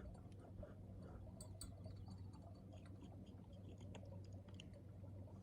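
Near silence: a faint steady low hum with scattered faint small clicks and ticks.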